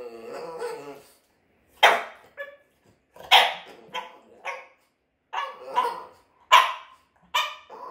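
French Bulldog barking: a drawn-out grumble fades out in the first second, then a string of about eight short, sharp barks follows from about two seconds in.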